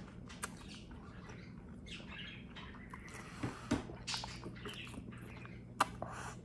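Mouth sounds of eating: soft chewing with wet lip smacks and clicks as a piece of vegetable filling is taken into the mouth and chewed, with sharper clicks about halfway through and again near the end.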